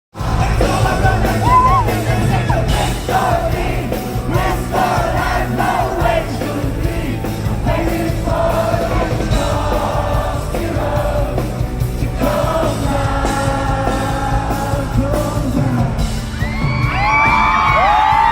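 Live concert performance: amplified band music with a singer, and the crowd present. Near the end, fans scream and whoop in high, sliding cries over the music.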